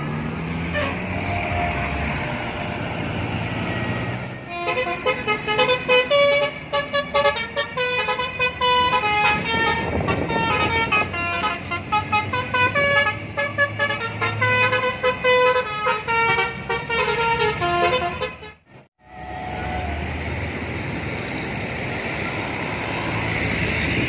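A bus's multi-tone Basuri telolet horn playing a quick, jingly melody of rapidly changing notes for about fourteen seconds, over bus engines and traffic. The melody cuts off suddenly, and only the steady noise of bus engines and traffic remains.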